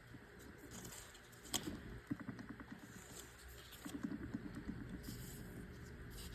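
Audi S4 0B5 DSG front differential with a freshly fitted bearing, turned over by hand: a single click about a second and a half in, then two spells of faint, fast ticking as the gears mesh. There is no bearing noise, which shows the new bearing is sound.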